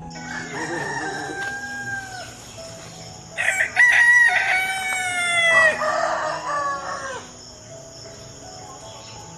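A rooster crowing twice: a softer crow in the first two seconds, then a louder, longer crow from about three and a half seconds in, each falling in pitch at the end. Soft piano music plays underneath.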